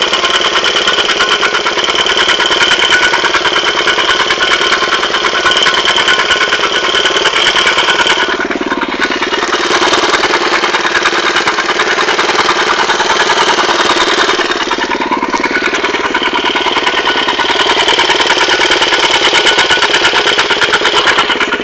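Motorcycle engine running steadily in first gear with the clutch held half-engaged. The owner hears an unwanted noise only in this situation, shortly after a valve clearance adjustment. The engine's tone shifts twice, about eight seconds in and again around fifteen seconds.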